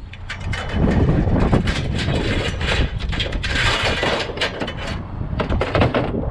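Scrap metal being handled and loaded into a pickup bed: a run of irregular clanks, knocks and scraping, busiest about three to four and a half seconds in.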